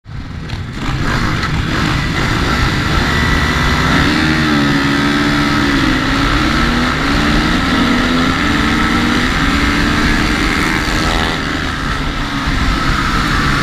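Supermoto motorcycle engine idling with small throttle blips that make the note waver, heard close up through a camera mounted on the bike.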